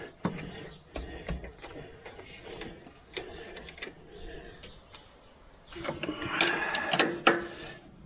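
A spanner clicking and tapping on the metal hydraulic hose fittings of an excavator swing motor as they are tightened, with a louder run of rapid clicks about six to seven seconds in.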